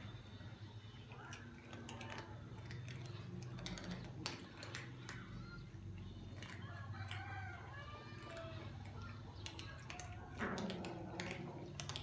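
Many cats crunching hard dry kibble: scattered sharp crunches and clicks, over a steady low hum, with short pitched animal calls in the background, most around seven seconds in.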